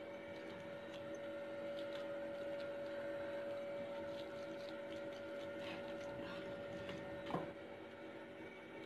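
Faint steady hum with scattered light ticks and one short knock about seven seconds in.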